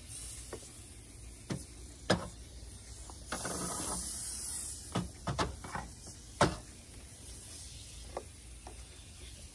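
Aerosol degreaser can spraying in hissing bursts, the longest starting about three seconds in and lasting about a second and a half. Several sharp clicks and knocks come in between, and they are the loudest sounds.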